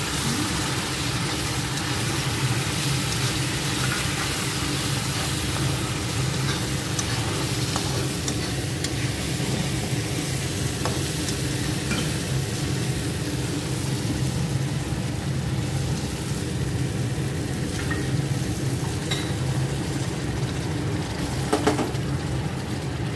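Tomato-onion masala sizzling in hot oil in a kadhai as boiled water is added a little at a time, while a slotted spatula stirs and scrapes the pan with scattered light clicks.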